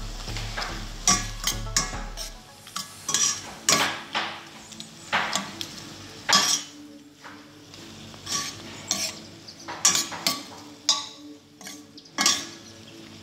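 Metal spoon stirring shrimp and vegetables in a stainless steel pot, scraping and clinking irregularly against the pot's sides and bottom.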